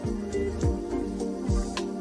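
Soft background music: sustained, held tones over a deep drum beat whose hits drop in pitch, about one every half second to second.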